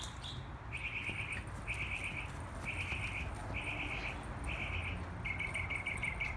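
Short high trills from a calling insect or bird, repeating about once a second and coming shorter and quicker near the end, over a steady low rumble.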